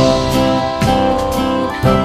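Background music with plucked guitar notes over a steady beat.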